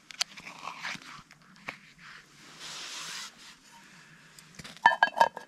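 A food pouch rustling and crinkling as it is pressed down into a pot of hot water. Near the end, a metal lid clatters onto the camping pot with a few sharp clanks that ring briefly.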